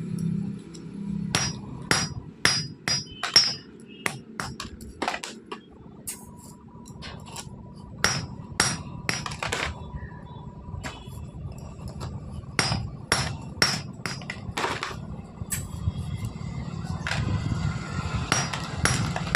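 Hammer blows on metal in runs of several strikes, about two a second, with pauses between the runs; some strikes ring briefly.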